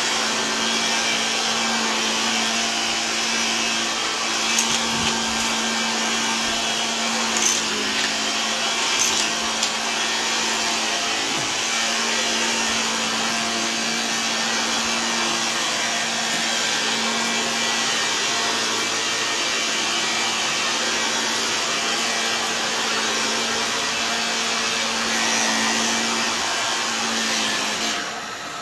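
Shark Lift-Away upright vacuum cleaner running on carpet with a steady motor hum and rush of suction, with a few brief clicks of picked-up debris a few seconds in. The sound drops a little in level near the end.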